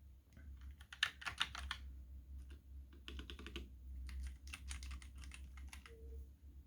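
Typing on an ASUS ROG mechanical gaming keyboard: quick runs of keystroke clicks in three bursts with short pauses between, over a steady low hum.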